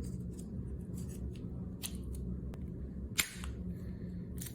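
A few sharp, separate plastic clicks and taps from fitting a new battery into an Audi key fob and closing up the fob, the loudest a little over three seconds in.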